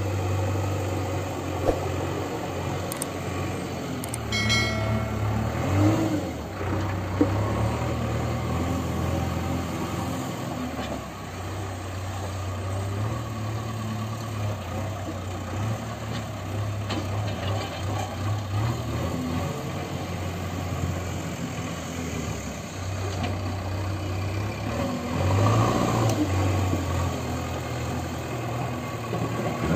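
JCB 3DX backhoe loader's diesel engine running under working load, its note swelling and easing as the machine lifts its loader bucket and drives across the yard. A few knocks are heard in the first several seconds.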